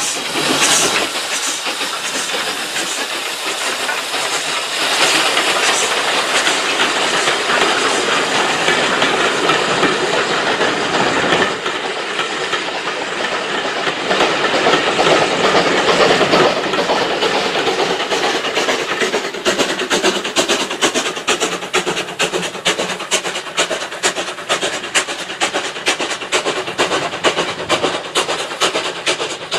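Two SE&CR steam tank engines, H class No. 263 leading, passing at speed with steam hiss and exhaust, followed by a train of coaches whose wheels give a fast, even clickety-clack over the rail joints through the second half.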